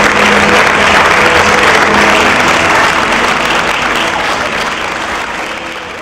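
Theatre audience applauding, a dense steady clapping that fades out gradually over the last few seconds.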